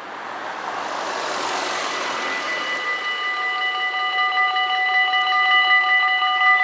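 A car drives up close by, its noise swelling and fading over the first couple of seconds. Then the Dutch level crossing's warning bells start ringing between two and three seconds in, a rapid, steady ringing that signals an approaching train.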